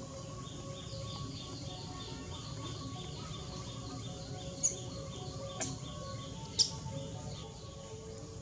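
Rapid repeated high chirps, about five a second, over steady outdoor background noise. In the second half come three sharp high-pitched squeaks about a second apart.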